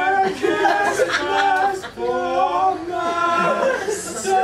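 Men's voices singing unaccompanied in long held notes that step from pitch to pitch.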